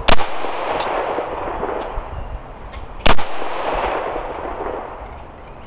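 AR-15 rifle fired twice in slow aimed fire, the shots about three seconds apart. Each shot is a sharp crack followed by a long echo that slowly dies away.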